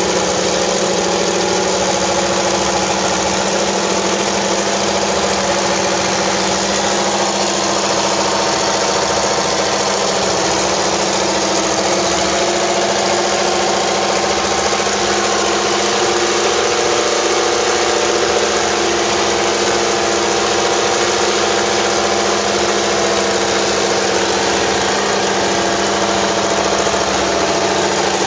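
Mercedes-Benz W196 Grand Prix car's 2.5-litre straight-eight engine idling steadily while warming up, loud and even with no revs.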